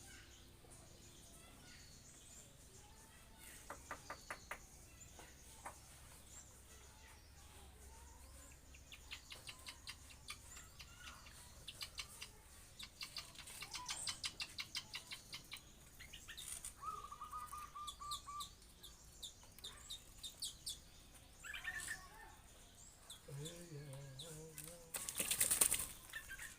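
Coucal flapping its wings in several short fluttering bursts, with a few bird chirps and a brief trill, and a louder rustling burst near the end.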